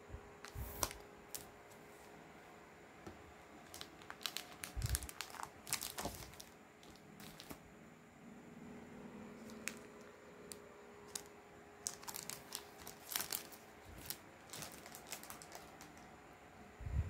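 Clear plastic comic book bags crinkling and rustling in scattered bursts of sharp clicks as bagged comics are handled and swapped. Underneath, a faint steady hum.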